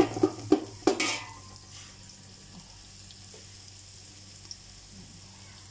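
A metal slotted spoon knocking and scraping against a large aluminium pot four or five times in about the first second, stirring minced garlic and ginger frying in oil; after that only a faint steady sizzle of the oil.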